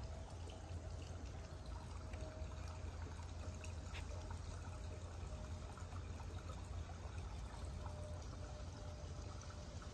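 Water trickling and pouring steadily, from a swimming pool's circulation, over a low steady hum; a faint thin tone comes and goes on top.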